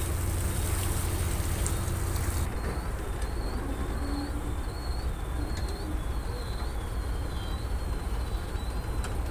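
Riding on a boat on a river: a steady low rumble with the wash of water. From about two and a half seconds in, faint short high chirps repeat about twice a second.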